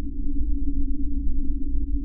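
Synthesized space-planet ambience: a steady deep rumbling drone with a humming tone in the low middle and nothing above the low range.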